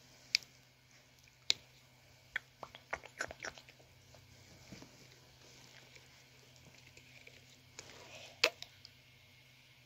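Plastic screw cap on a soda bottle twisted by hand, giving a series of sharp clicks and cracks, several in a quick cluster partway through and one loud crack near the end.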